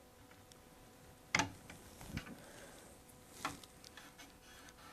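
Steel chisel scraping hardened epoxy off a wooden chair rail: a few sharp clicks as the edge catches and chips come off, the loudest about a second and a half in and another near three and a half seconds.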